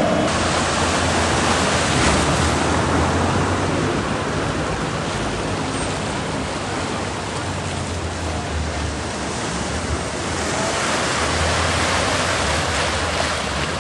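Floodwater rushing and splashing as cars drive through a flooded road, a steady churning wash that swells a little about ten seconds in, with a low vehicle hum coming and going underneath.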